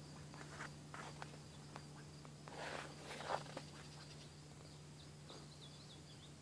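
Faint steps and scuffs on a gravel driveway, loudest about two and a half to three and a half seconds in, over a steady low hum. A few faint high chirps come near the end.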